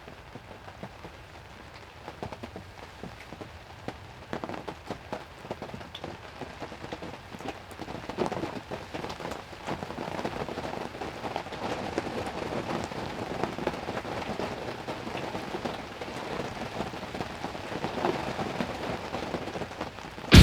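Heavy rain falling, a steady hiss of many small drop impacts that grows louder about eight seconds in.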